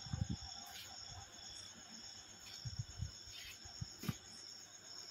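Crickets trilling steadily in the night, a faint high continuous sound, with a few soft low thumps near the start and again around three to four seconds in.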